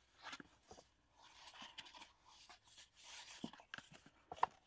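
Kraft cardstock box, made from a file folder, being handled and its folds pressed flat between the fingers: faint rubbing and rustling of card with small clicks.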